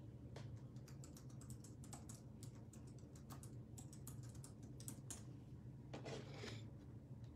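Faint, quick typing clicks on a keyboard, a search being typed, stopping about five seconds in, followed by a brief rustle.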